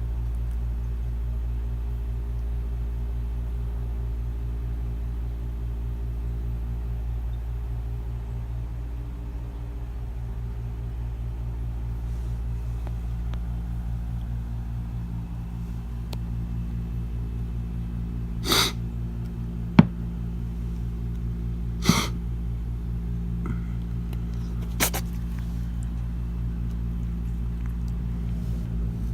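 A steady low mechanical hum, with a cat sneezing three times a few seconds apart in the second half. A single sharp click, the loudest sound, falls between the first two sneezes.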